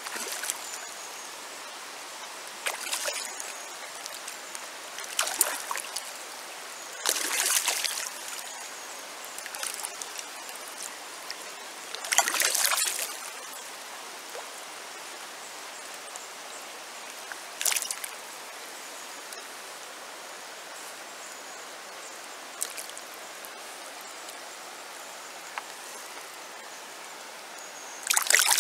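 Shallow river water running over stones, with short irregular splashes close by. The loudest splashes come about twelve seconds in and near the end, where a trout is held in the water.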